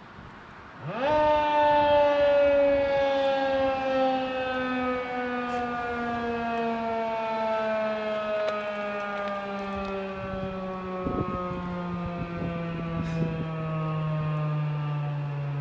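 Federal Signal 2001-SRN electromechanical outdoor warning siren on a short test. It winds up sharply about a second in, then coasts down with its tone falling slowly and steadily.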